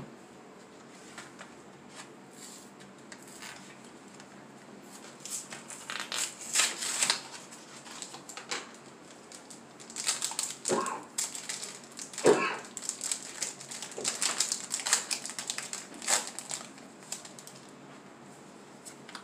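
Foil wrapper of a Yu-Gi-Oh! booster pack crinkling as it is torn open and pulled off the cards, in several bursts of crackling after a few quieter seconds.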